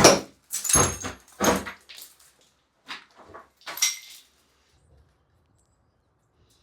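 Three loud knocks and bangs in quick succession, followed by a few fainter metallic clinks with a short ring, as a wall shelf is worked loose and taken down.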